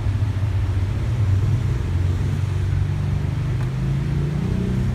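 Steady low hum of a running motor, its pitch rising slightly near the end.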